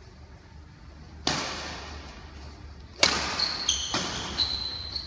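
Badminton rally: rackets strike the shuttlecock three times, sharp smacks that echo in the hall, the second and third about a second apart. High-pitched shoe squeaks on the court floor come between the later strikes.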